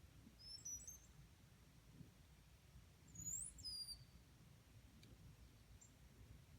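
Near-quiet outdoor ambience with a few faint, high-pitched bird chirps about half a second in, and a louder chirping call that sweeps up and then down about three seconds in.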